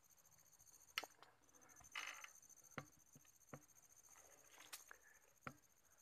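Faint scattered clicks and knocks of a scoped rifle being handled and swung, about six of them, with a short rustle at about two seconds. A faint steady high insect trill comes in about a second and a half in.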